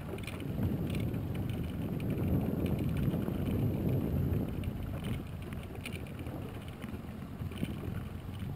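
Small outboard motor running at trolling speed, a low steady rumble that swells slightly and then eases, with wind on the microphone.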